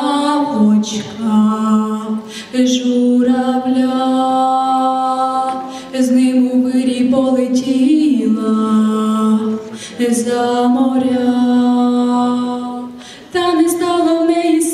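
A girl singing solo into a handheld microphone, holding long sustained notes in phrases of about three to four seconds, with brief breaks between phrases.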